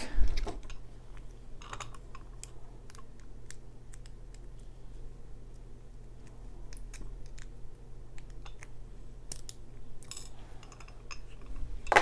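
Scattered small metallic clicks and taps as the retaining clip is worked off the back of a brass Mul-T-Lock lock cylinder and lock parts are handled on an aluminium tray, over a faint steady low hum.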